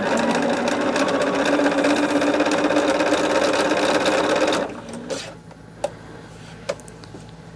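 Bernina sewing machine stitching a quarter-inch seam at a steady speed, then stopping abruptly about four and a half seconds in. Two light clicks follow.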